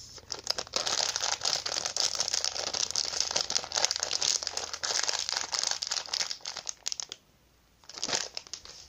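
An ASMR trigger: dense crinkling and crackling of something being crumpled, lasting about seven seconds before stopping abruptly, followed by a short burst of the same sound near the end.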